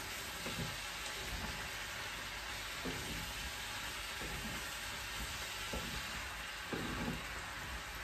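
Diced chicken and bell peppers sizzling as they fry in a frying pan, with a wooden spatula stirring and scraping through them now and then.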